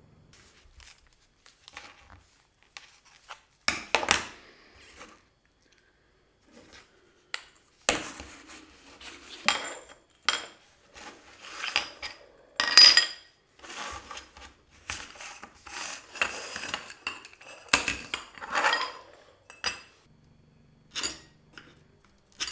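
Aluminium trekking-pole tubes handled on a wooden workbench: a run of knocks and metallic clinks, some ringing briefly, with short scraping stretches between them. The loudest clink comes about halfway through.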